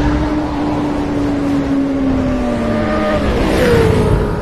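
Motorcycle engine sound effect for an animated intro: an engine held at high revs, its pitch sliding slowly down, then a rush of noise and a sharper drop in pitch near the end.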